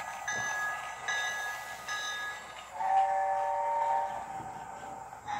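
Electronic sound effects from a toy Hogwarts Express train set, played through its small speaker. A high electronic tone repeats about once a second, then a lower, chord-like train-whistle sound comes in about three seconds in and lasts about a second.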